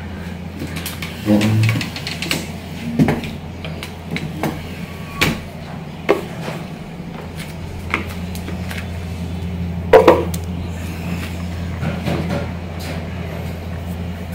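Scattered knocks and clatter of a yellow plastic dog bowl being handled and set down on a tiled floor, the loudest knock about ten seconds in, over a steady low hum.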